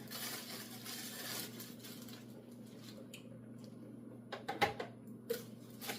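Juicer parts and packaging being handled while they are taken out of the box: soft rustling in the first couple of seconds, then a few clicks and knocks near the end.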